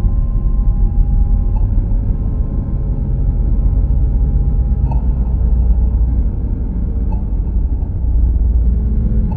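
Dark ambient drone music: a deep, steady low rumble with faint held tones above it that shift a few times.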